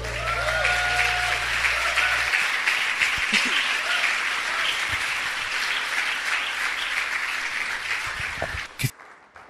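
Church congregation applauding, with a few voices rising over the clapping near the start. A low held music note underneath cuts off about two seconds in. The applause dies away near the end, followed by a sharp click.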